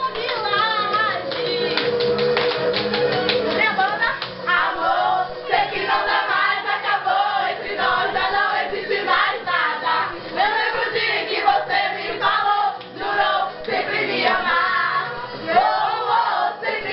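A group of voices singing together, with rapid hand claps in the first couple of seconds.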